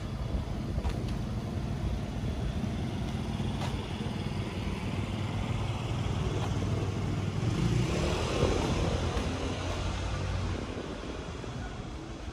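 Street noise with a motor vehicle's engine running close by. It grows loudest about eight seconds in, then fades away.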